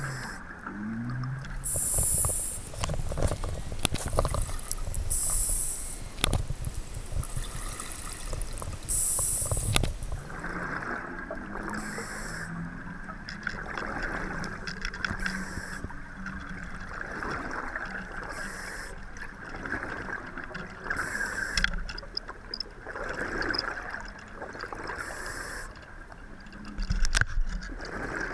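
Scuba diver breathing through a regulator underwater: short hissing inhalations and bubbling, gurgling exhalations repeating every few seconds, over a steady low hum carried through the water.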